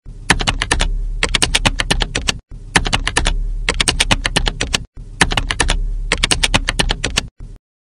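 Keyboard typing sound effect: rapid keystroke clicks in three runs of about two and a half seconds each, with short breaks between them.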